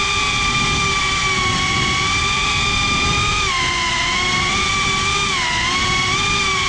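GEPRC CineLog 35 FPV cinewhoop's motors and ducted propellers whining steadily, heard close up from the onboard GoPro, the pitch dipping briefly twice, about three and a half and five and a half seconds in.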